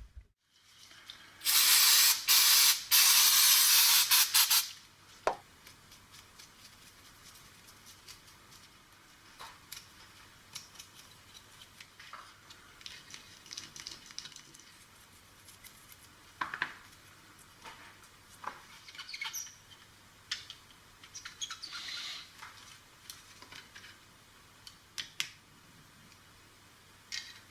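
Aerosol cleaner sprayed onto a circuit board in a few short bursts lasting about three seconds in all, then scattered light scratches and clicks as the board is worked on.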